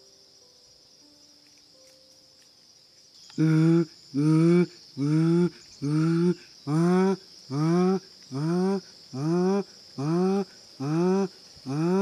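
A man calling through cupped hands to lure a bird: a run of short, rising hoots, about one a second, starting a little after three seconds in. A steady insect buzz underneath.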